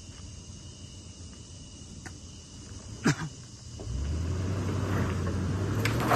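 An off-road vehicle's engine revved hard and held at high revs from about four seconds in, under load on a steep climb. A sharp click comes shortly before, and a loud burst of noise comes right at the end.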